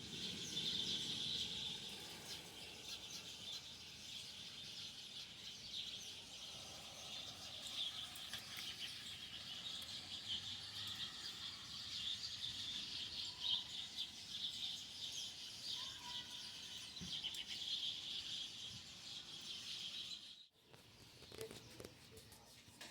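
A large flock of birds roosting in a tree, hundreds calling at once in a dense, unbroken chatter of high chirps. It cuts off suddenly about twenty seconds in.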